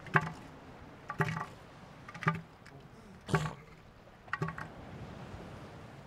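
Northern elephant seal calling: five pulsing bursts about a second apart, each a rapid train of pulses.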